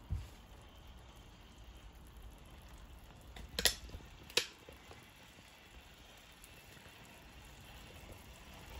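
Water with instant ramen noodles boiling in a saucepan, a faint steady bubbling hiss. There is a soft knock at the start, and two sharp clicks about a second apart near the middle.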